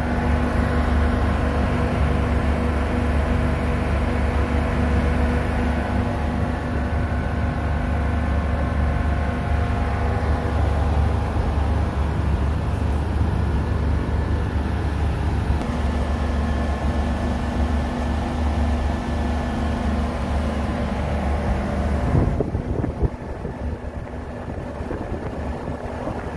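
Cold-storage refrigeration outdoor condensing unit running: a steady mechanical hum with fixed low tones from the compressor and condenser fans. About 22 seconds in the hum cuts off abruptly, leaving a quieter, rougher noise.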